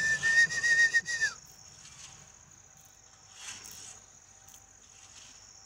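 Insects chirring in a steady high drone. Near the start a loud high held note lasts just over a second and drops in pitch as it ends.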